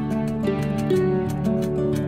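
Background music: plucked strings, harp- or guitar-like, playing a gentle melody.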